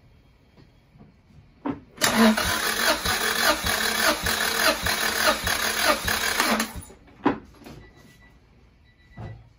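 Honda B18 four-cylinder engine cranked over by its starter motor for about five seconds, spinning without firing because its spark plugs are out and its fuel injectors are unplugged, during a compression test. The cranking has an even pulse of about two to three beats a second and stops abruptly. A click comes just before it starts.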